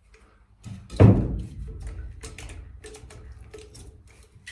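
A dull thump about a second in, then a run of short sharp clicks, about three a second: the trigger of a manual caulking gun being squeezed repeatedly to push a bead of sealant along the steel of the hull.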